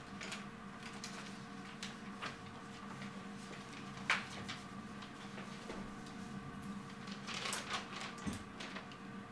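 Sheets of paper being picked up, turned over and leafed through at a desk: scattered short rustles, the sharpest about four seconds in and a flurry near the end, over a steady low hum.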